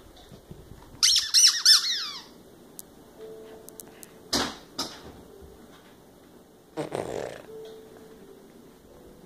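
A dog biting a squeaky toy: a quick run of loud, high squeaks with falling pitch about a second in, then shorter, fainter squeaks around four and seven seconds.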